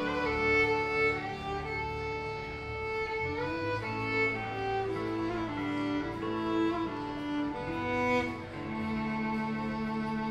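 Live country band playing, with a fiddle carrying a sustained, sliding melody over low held bass notes.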